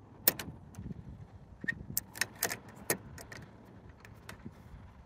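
Steel Master Lock padlock clinking and rattling against a metal clamp lock as its shackle is worked through the hasp: a string of sharp, separate clicks and taps.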